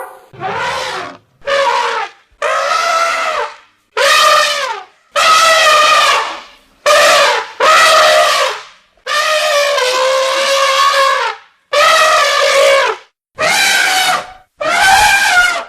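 Elephant trumpeting: about a dozen loud brassy trumpet calls in quick succession, each lasting about a second, many sagging in pitch at the end.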